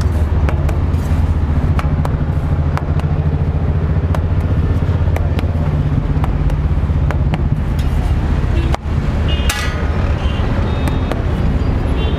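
Steady low rumble of nearby road traffic and engines, with light clicks of a steel spatula tapping and scraping a paratha on a large iron tawa. A brief vehicle horn sounds about nine and a half seconds in.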